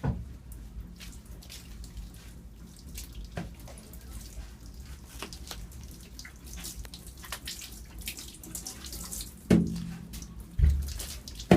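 Bath water splashing and dripping in a tub, many small scattered splashes over a steady low hum. Two louder dull thumps come near the end.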